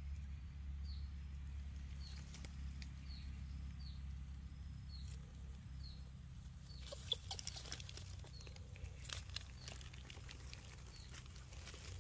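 Dry leaves crackling and rustling as a baby monkey stirs on them, mostly in a brief cluster a little past halfway. A short, high chirping call repeats at a steady pace throughout, over a low steady rumble.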